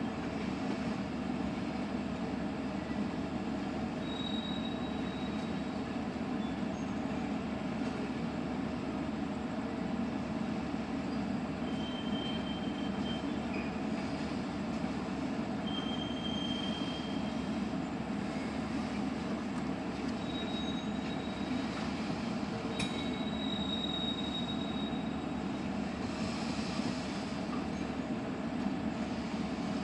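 Freight train of tank cars rolling past with a steady low rumble. The wheels give several short high-pitched squeals, and there is one sharp knock about two thirds of the way through.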